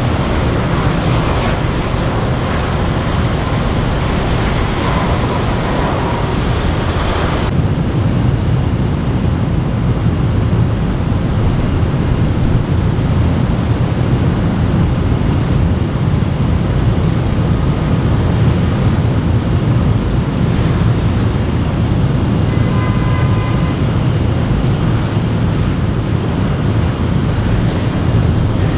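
Airliner jet engines heard as a steady low rumble with a hiss over it; the hiss drops away abruptly about seven seconds in.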